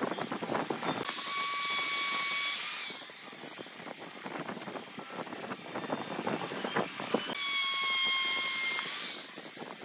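Small electric power-tool motor running in two bursts of about two seconds each, a steady high whine that starts and stops abruptly, with knocks and clatter of work being handled between the bursts.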